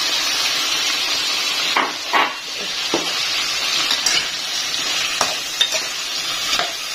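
Vegetables frying in hot oil and spice paste in a pan, a steady sizzle, with a spatula knocking and scraping against the pan about seven times as they are stirred.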